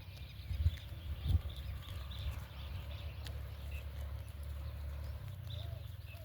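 A steady low rumble with two heavy thumps in the first second and a half, and faint high chirps of small birds above it.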